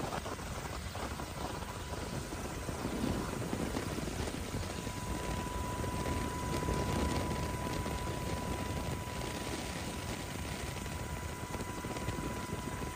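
Military firefighting helicopter running steadily, a dense noise of rotor and engine, with a thin steady whine coming in about a second in.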